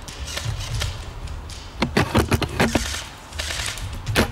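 Sharp metallic clicks and knocks from a Tokyo Marui VSR-10 spring bolt-action airsoft rifle being handled, over a low rumble of wind on the microphone: a quick cluster of clicks about two seconds in, and one single sharp click near the end.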